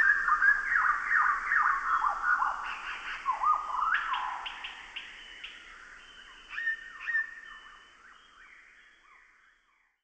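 A flock of small birds chirping, many short falling chirps overlapping, thinning out and fading away over the last few seconds.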